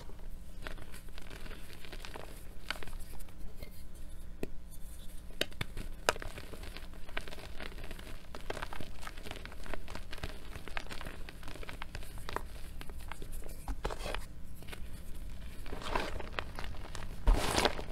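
Hands squeezing and crumbling reformed gym chalk: soft crunching and scattered small crackles as the pressed chalk breaks into powder, with a louder crunching stretch near the end.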